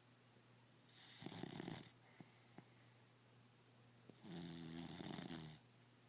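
Snoring: two loud snores, one about a second in and a longer, buzzing one about four seconds in.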